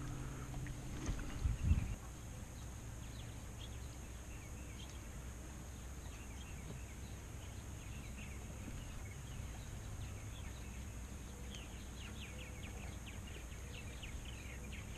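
Quiet outdoor ambience on the water: one dull thump about a second and a half in, then a low steady rumble with scattered faint ticks and clicks, most of them near the end.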